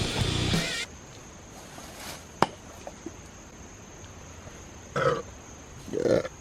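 Background music that cuts off, then a single sharp click, then two short burps about a second apart near the end.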